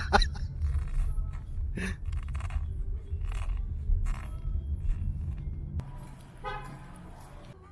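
Steady low road rumble inside a moving car's cabin, with a few brief scattered noises over it. It cuts off near the end to quieter outdoor sound with one short horn-like toot.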